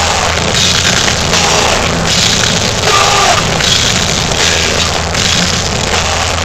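Heavy metal band playing live, with distorted guitars, bass and drum kit keeping a steady beat, recorded loud and harsh with bad sound quality.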